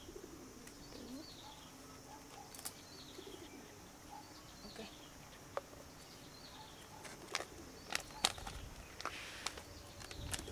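Birds chirping in the background, short falling calls repeated every second or so, while a plastic feeding bottle and a milk-powder packet are handled, giving several sharp clicks and taps in the second half. A brief rustle with a low rumble comes near the end.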